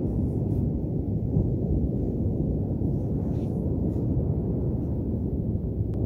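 Wind buffeting the microphone: a steady low rumble with almost no high hiss.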